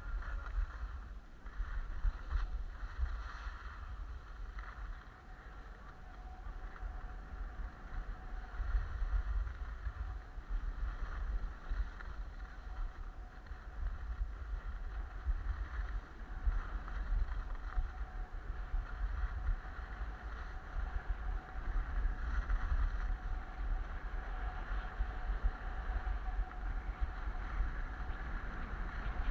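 Wind buffeting the microphone during a ski descent, a steady low rumble, with the hiss of skis sliding over packed snow.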